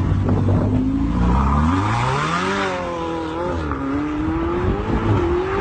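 Ferrari 488's twin-turbo V8 revving hard as the car accelerates away, its pitch climbing steeply, dropping at a gear change about three and a half seconds in, then climbing again.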